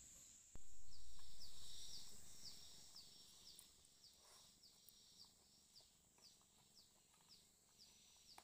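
Faint, high-pitched chirps repeating about twice a second from a small calling animal. About half a second in, a sudden low rumble starts and fades over the next few seconds.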